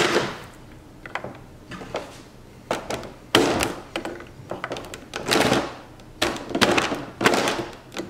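A series of irregular knocks and thunks as a brass hinge pin is tapped out of a vacuum canister's plastic latch, a pick held against the pin and struck with a mallet.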